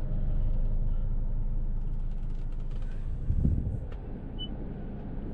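Steady low rumble inside the cabin of a 2015 Toyota Harrier idling with the air conditioning running. A soft knock comes about three and a half seconds in, and a short high touchscreen beep from the head unit sounds about a second later.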